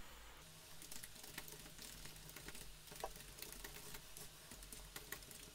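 Faint computer keyboard typing: quick, irregular key clicks over a low steady hum.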